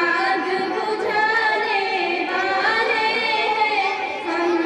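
Young girls singing a tarana, a devotional madrasa song, into microphones, their voices holding long notes that waver and slide in pitch.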